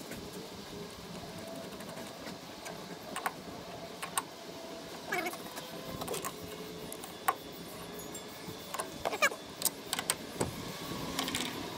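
Ratchet wrench clicking and metal tools clinking as the bolts of the hydraulic filter cover on a Kubota mini excavator's hydraulic tank are tightened down, with scattered knocks and a quick run of ratchet clicks near the end. Two short wavering calls are heard, about five and nine seconds in.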